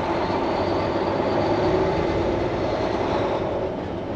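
Truck driving along, heard from inside the cab: a steady engine and road noise.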